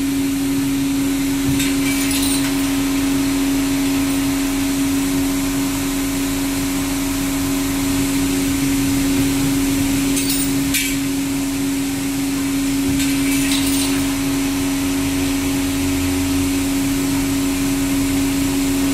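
Valve groove grinding machine running steadily: a constant motor hum under a grinding hiss, with a few sharp clicks about two, eleven and thirteen seconds in.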